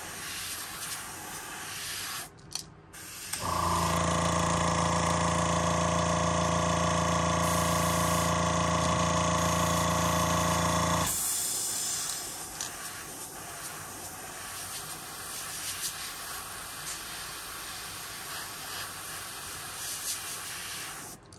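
Airbrush hissing as it sprays candy paint onto a lure. In the middle a motor hums steadily and loudly for about seven seconds, then stops, and the softer hiss goes on.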